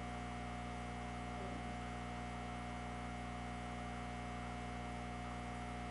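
Steady electrical mains hum: a low drone with a few higher steady tones over faint hiss.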